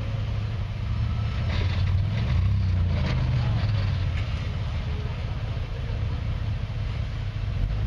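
Off-road vehicle engine running with a low, steady rumble that rises and falls slightly. About one and a half to three seconds in, a burst of rushing, crackling noise rides over it.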